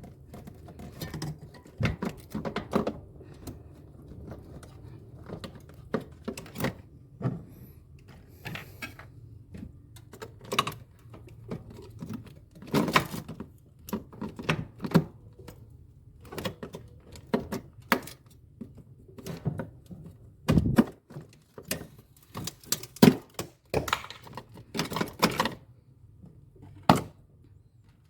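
Irregular clicks, taps and knocks of hands and tools handling refrigerator parts, some in quick clusters, over a faint steady low hum.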